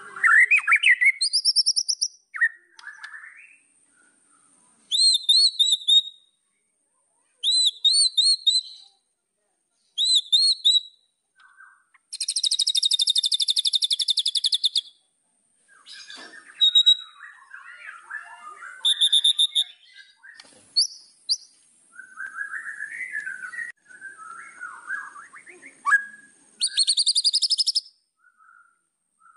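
White-rumped shama (murai batu) singing a varied song. Short phrases of repeated whistled notes are broken by pauses, with a fast, dense trill lasting about three seconds starting about twelve seconds in. Lower chattering notes follow, and another fast trill comes near the end.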